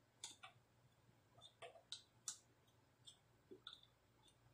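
Faint, irregular small clicks and ticks, about nine in four seconds, from a soldering iron and hand tools touching an amplifier circuit board while its solder joints are being redone.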